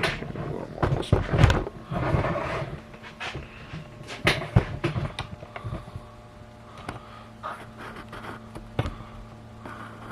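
Irregular knocks, clicks and scrapes of a camera being handled and set in place, busiest in the first half, over a steady low electrical hum.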